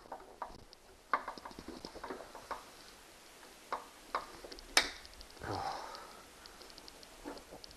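Screwdriver working at a very tight screw on a treadmill's motor cover: scattered small clicks and scrapes, with one sharper click a little before five seconds in.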